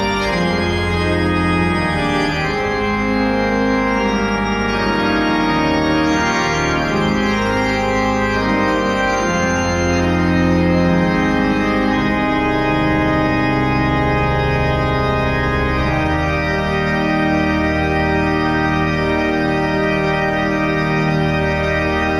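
Organ playing a hymn in slow, held chords that change every second or so.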